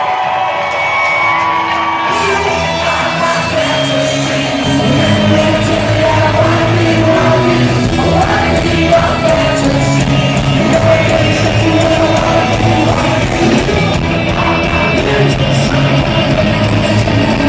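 Live rock band playing in a large hall, with singing and shouts over it. The full band comes in about two seconds in.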